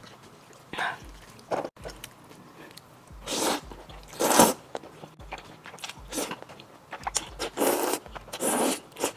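A person slurping up mouthfuls of sauced Nanchang mixed rice noodles in several long, loud slurps, the loudest about four seconds in. There are softer mouth clicks and chewing in between.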